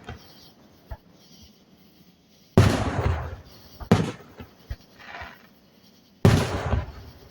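Aerial firework shells bursting: three loud booms, about two and a half, four and six seconds in, each rolling off over a second or so, with a small pop about a second in.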